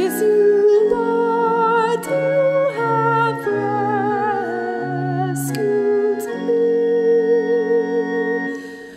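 Church organ playing held chords that change about every second, under a melody line with vibrato, in a sung responsorial psalm setting. The sound dips away briefly near the end.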